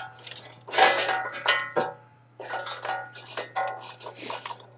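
Wooden splits and kindling knocking and clattering against the steel firebox and grate of a Workhorse Pits 1975 offset smoker, several knocks followed by a short metallic ring, the loudest about a second in.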